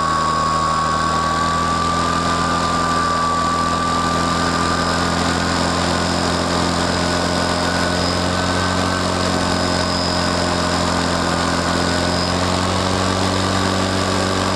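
Radio-controlled model airplane's motor and propeller running at a steady speed, heard from a camera riding on the plane: an even hum with a higher whine above it.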